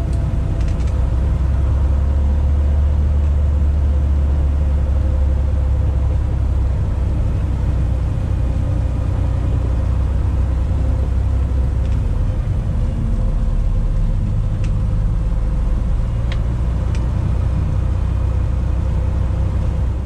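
Cessna 180's six-cylinder piston engine and propeller running steadily, a deep drone heard from inside the cockpit, with a few faint clicks in the second half.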